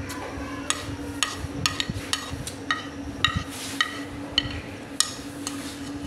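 A spoon clinking and scraping against a plate while eating: about fifteen short, irregular taps, each with a brief ring. A steady low hum runs underneath.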